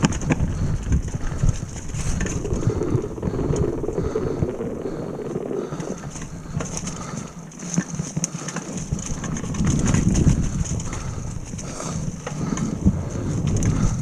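Retro downhill mountain bike riding a leaf-covered dirt trail: wind rushing over the microphone, tyres rumbling over the ground and the bike knocking and rattling over bumps.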